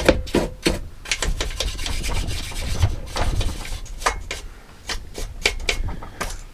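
Chainsaw being scraped and rubbed clean of sawdust and grime by hand: a quick, irregular run of scratchy strokes.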